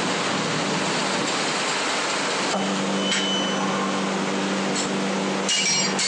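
Steady rushing roar of foundry machinery, with a low steady hum coming in about two and a half seconds in.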